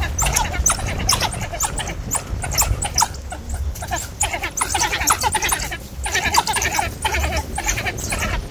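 African wild dogs twittering: many short, high-pitched, bird-like chirping calls that overlap, several a second, with two brief lulls.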